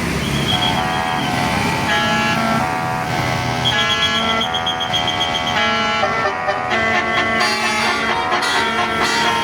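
A bus's telolet Basuri melody horn playing a tune: several horn tones sound together as chords that change in quick steps, some notes held longer than others.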